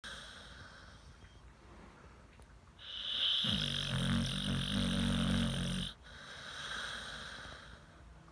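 A sleeper snoring: soft breathing, then one loud, rattling snore about three seconds long that cuts off abruptly, followed by a softer breath out.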